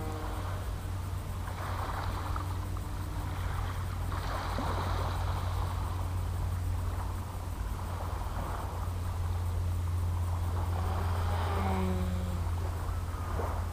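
Propeller aircraft flying overhead, a steady low engine drone whose pitch dips slightly as it passes near the end.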